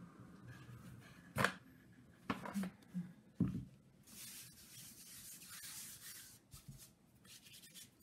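Cotton kitchen towel rustling and rubbing as it is spread and smoothed over dough balls by hand, with a few sharp knocks in the first half and a longer soft rustle near the middle.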